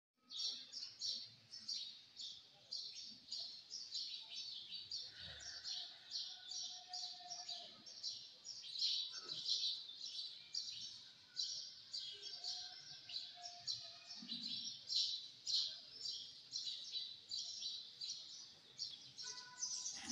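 Many small birds chirping rapidly and continuously in a dense chorus of high, quick notes.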